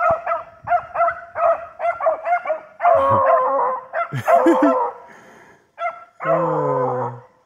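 A pack of beagles baying while running a rabbit: short, pitched bays come about two to three a second, with several dogs' voices overlapping in the middle. Near the end a longer, lower call falls in pitch.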